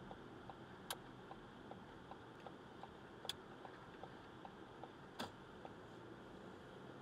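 A car's turn-signal indicator ticking steadily, about two and a half clicks a second, signalling a right turn. Three louder, sharper clicks come about one, three and five seconds in.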